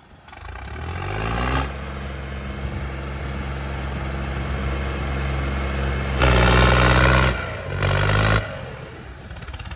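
John Deere tractor diesel engines pulling against each other under full load in a tug-of-war. The revs climb over the first second and a half, hold steady and hard, surge louder about six seconds in and again near eight seconds, then drop off near the end.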